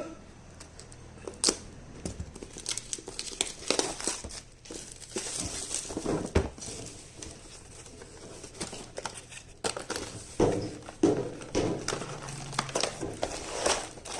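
Packaging being handled and unwrapped: irregular crinkling and rustling with scattered clicks and knocks.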